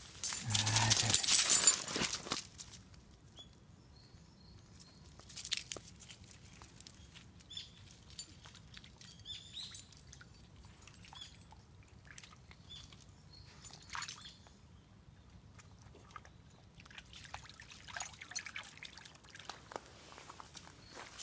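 Miniature schnauzer splashing and stepping through a shallow, leaf-covered stream. There is a loud burst in the first two seconds, then scattered light splashes, with faint bird chirps.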